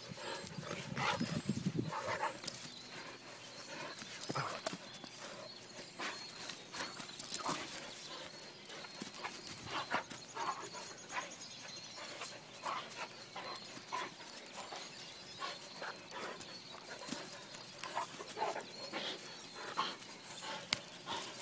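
Doberman playing tug-of-war: a low growl in the first couple of seconds, then irregular scuffling, tugging and knocking sounds for the rest.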